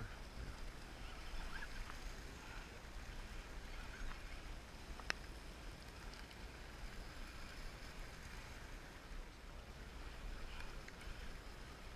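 Low steady rumble of a sportfishing boat's engine under faint water and wind noise, with one sharp click about five seconds in.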